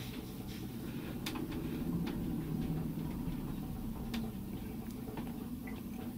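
Faint steady low hum with a few light, isolated ticks.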